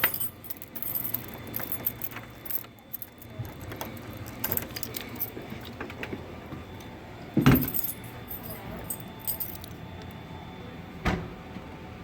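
Keys and metal deadbolt parts clinking and rattling as they are handled, with a louder knock about seven and a half seconds in and another near the end.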